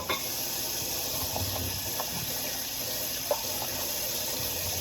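Water running steadily from a kitchen tap while dishes are washed by hand, with a sharp knock at the start and a few faint clinks.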